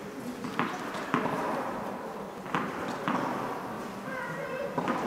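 A few sharp, irregular knocks of tennis balls, echoing in an indoor tennis hall, over a low murmur of spectators.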